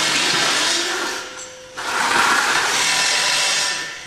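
Handheld power tool running in two long bursts: it stops about a second and a half in, starts again after a short pause and stops near the end.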